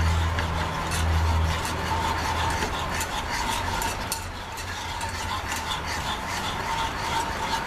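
Wire whisk stirring a honey-sweetened ham glaze in a small metal saucepan on a gas burner, its wires clicking and scraping against the pan in rapid, steady strokes while the glaze heats toward a boil. A steady low hum runs underneath, loudest in the first second and a half.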